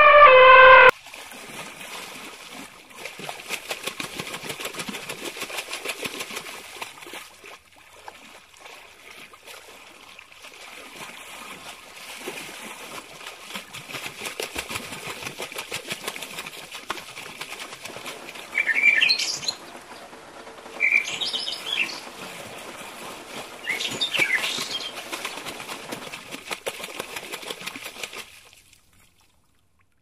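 An elephant's trumpeting call cuts off about a second in. A steady outdoor hiss follows, with birds chirping in three short bursts past the middle, until the sound fades out near the end.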